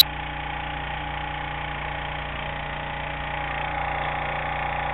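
An engine running steadily, an even drone that holds one pitch throughout.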